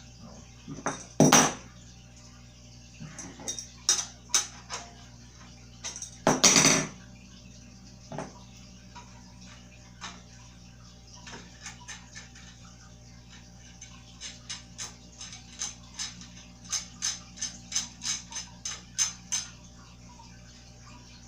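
A steel combination wrench clinking against the wheel axle nuts and metal frame of a toddler bike as the nuts are tightened. There are two louder clatters early on, then scattered clicks, then a quick run of light metal clicks near the end.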